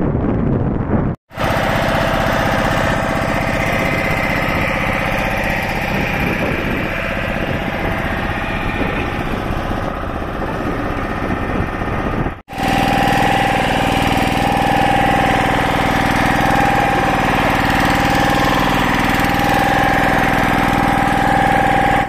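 Wind buffeting the microphone for about a second, then the engine of a small wooden motorboat running steadily under way, with a second hard cut about halfway through.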